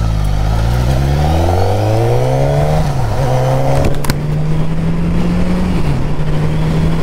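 Motorcycle engine accelerating, its pitch rising steadily, then dipping briefly at an upshift about three seconds in before it runs on at a steady pitch. There is a short click about four seconds in.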